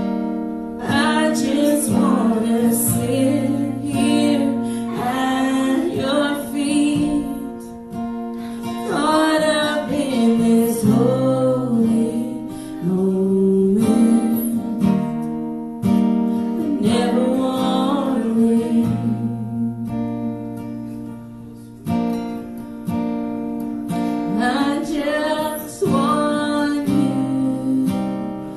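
Worship song: acoustic guitar strumming with a voice singing phrases over it, dipping quieter for a moment about three quarters of the way through.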